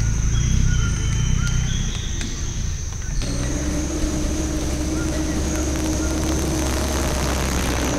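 A 4x4 truck's engine running as it drives through a muddy puddle, with water splashing, coming in abruptly about three seconds in. Before that, a low engine rumble under short bird chirps and a steady high-pitched drone.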